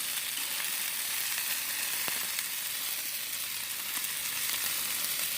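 Food sizzling steadily on a propane Blackstone flat-top griddle: chicken wings and vegetables frying in grease, a continuous high hiss with a few faint pops.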